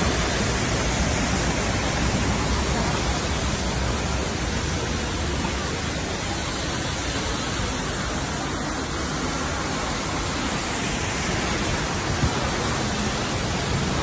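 Düden Waterfall's falling water pouring into its plunge pool: a steady, dense rushing roar with no break.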